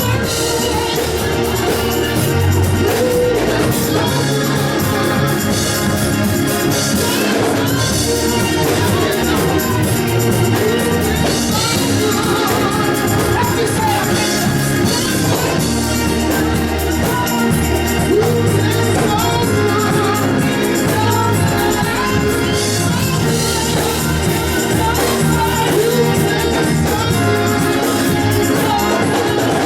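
Gospel music with singing, a steady band underneath.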